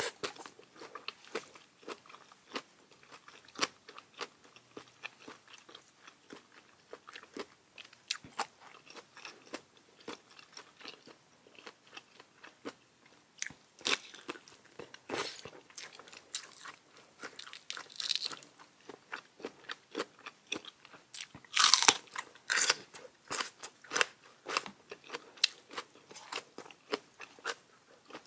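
Close-miked eating sounds: chewing and crisp crunches of a spicy papaya salad meal, in scattered short bites, with a louder run of crunches a little past two-thirds of the way through.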